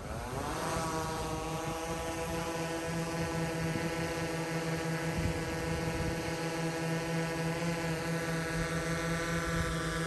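DJI Mavic 3 quadcopter's propellers spinning up for takeoff: a whine that rises in pitch over about the first second, then a steady buzzing hum as the drone hovers and flies off.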